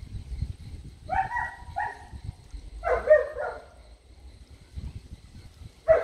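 A dog barking several times: a couple of short barks about a second in, a longer bark around three seconds, and a sharp one just before the end.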